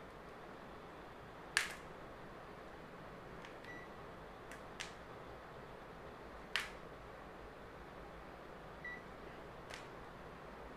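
A digital multimeter being switched on and set up: four sharp clicks a few seconds apart and two short, high beeps, over a faint steady hiss.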